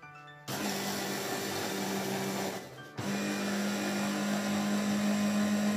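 Electric hand blender driving its chopper attachment, a steady motor hum over a gritty whirr as it chops a brown crumb mixture in the plastic bowl. It starts about half a second in, stops briefly a little before halfway, then starts again.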